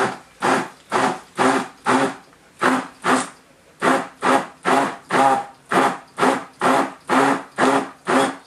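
Stick (immersion) blender whirring in short pulses, about two a second, in a stainless steel bowl of liquid sauce. It is pulsed rather than run steadily because its head tends to suction onto the bottom of the bowl.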